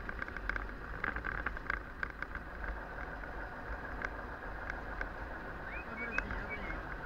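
Road noise heard from inside a moving vehicle's cab: a steady low rumble with a scatter of short rattles and clicks. A few brief high squeaks come about six seconds in.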